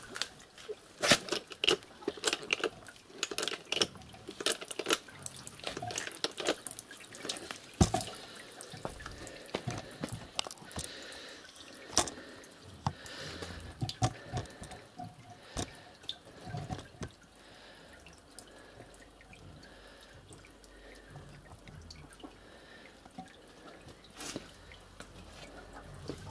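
Water dripping irregularly from a homemade paper-briquette press, the soaked cardboard pulp inside it draining. The drips come quickly at first and thin out after about two-thirds of the way through.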